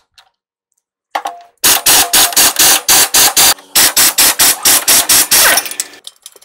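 Cordless impact wrench with a long socket extension hammering on a bolt of a semi truck's V-rod bearing mount, in hard pulses about five a second with a short break in the middle. It ends with a brief rising whine.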